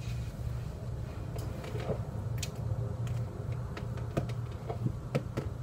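Steady low hum of room noise with a scattering of small, sharp clicks and taps, about eight of them, most in the second half.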